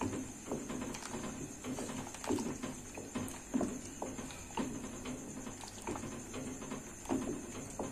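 Wooden spoon stirring soup in a steel pot, knocking and scraping against the pot's sides and bottom in an irregular rhythm of about one or two knocks a second.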